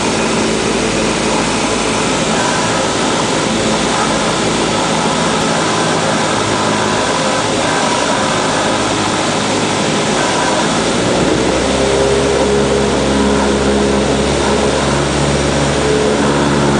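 Cabin noise of a Cessna 172 on its landing approach: the engine and propeller drone steadily over the rush of air. About eleven seconds in, the engine note changes, and a deeper steady hum comes in and stays.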